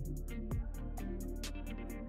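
Background R&B trap-soul music with deep bass and a steady drum beat.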